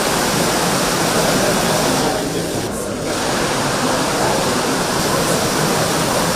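Dense crowd noise: many voices talking at once, blended into a steady rush, easing slightly for a moment about halfway through.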